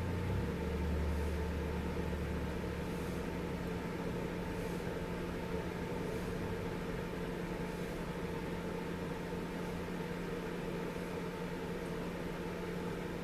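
A steady background hum, with a deeper drone that fades out over the first few seconds and a few faint small clicks.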